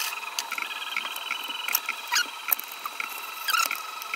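Light clicks and taps of 3D-printed plastic parts being handled and fitted together, over a faint steady machine whine that briefly glides up and down in pitch twice, about two and three and a half seconds in.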